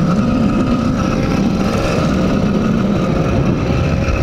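80cc two-stroke bicycle engine kit running under way, loud through its silencer, its note wavering up and down a little with the throttle.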